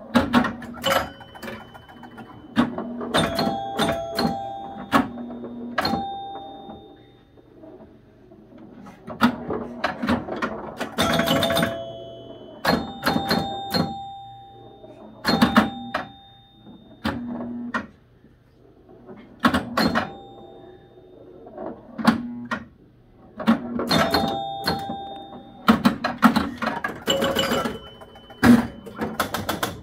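1973 Gottlieb Big Indian electromechanical pinball machine in play: flippers, bumpers and relays clacking, score reels clicking over and chime bells ringing as points score. The action comes in bursts of a few seconds with brief lulls between.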